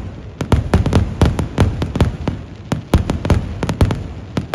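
Kerala temple-festival fireworks (vedikettu): a rapid, irregular barrage of aerial shells bursting overhead, about four or five sharp bangs a second with a low rumble between them.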